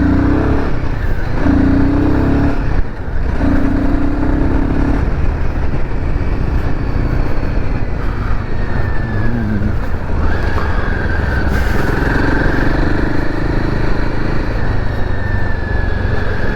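Royal Enfield Himalayan 450's single-cylinder engine running steadily while the motorcycle is ridden along the road.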